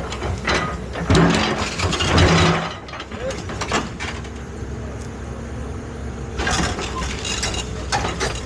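Excavator engine running steadily under a low hum, with bursts of metallic clanking and scraping about a second in and again near the end.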